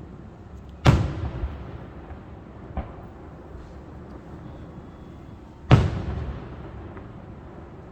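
Aerial firework shells bursting: a loud boom about a second in and another near six seconds, each trailing off in a long rumbling echo, with a smaller pop between them.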